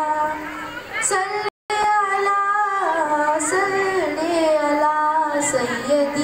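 A girl's solo voice singing a naat, an Urdu devotional poem in praise of the Prophet, into a microphone, with long held notes that glide in pitch. The sound cuts out completely for a split second about a second and a half in.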